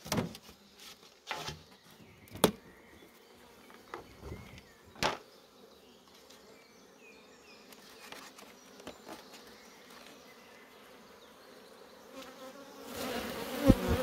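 Hive lid and cover being lifted off a small nuc box, giving a few sharp knocks and clicks in the first few seconds. Near the end a buzz of honeybees rises as a frame is drawn out of the queenless laying-worker colony.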